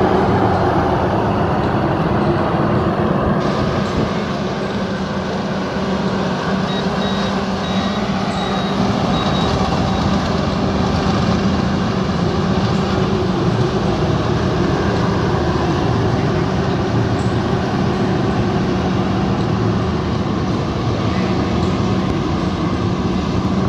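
Rice combine harvester engine running steadily under load, with a short run of faint high beeps a few seconds in.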